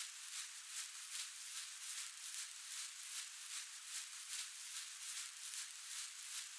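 Quiet rhythmic hiss pulsing about three times a second, with no low end, like a filtered shaker or hi-hat loop in an electronic soundtrack.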